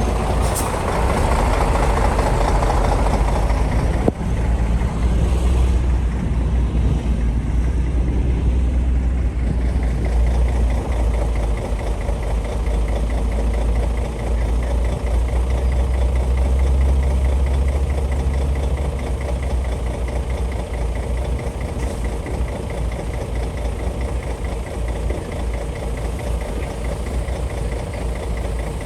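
Bulldozer's heavy diesel engine running with a deep, steady rumble that eases slightly in the last third.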